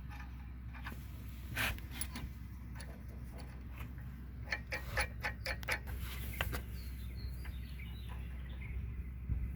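Light metallic clicks and ticks of hand work on the bolt holding a mini excavator's bucket pin as its nut is fitted and tightened, with a quick run of clicks about halfway through.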